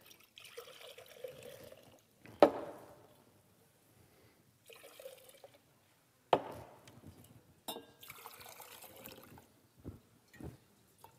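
Liquid poured from a glass flask into glass beakers in several short pours, one beaker after another. A few sharp glass knocks, the loudest about two and a half seconds in and again about six seconds in, as the glassware touches or is set down.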